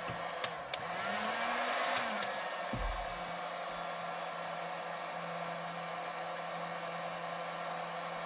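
Handheld electric heat gun blowing steadily, a fan whir and hum under an airy hiss, heating the steering-wheel hub to free a seized wheel. Its pitch briefly rises and falls between about one and two seconds in, with a couple of light clicks just before and a low thump a little later.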